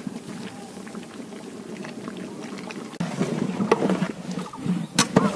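Large pot of lamb curry boiling and bubbling. From about three seconds in it is louder, with a long metal ladle stirring the curry and knocking sharply against the pot a couple of times.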